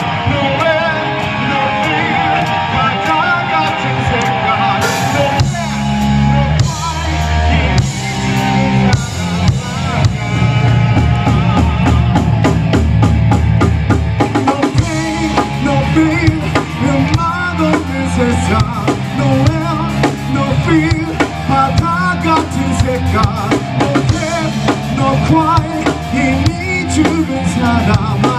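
Live rock band playing: electric guitar leads at first with little low end, then drums and bass come in about five seconds in and the full band carries a steady beat.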